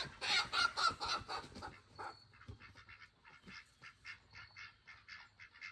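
Farm fowl calling: a quick run of short, harsh calls several times a second, louder in the first two seconds, then fainter.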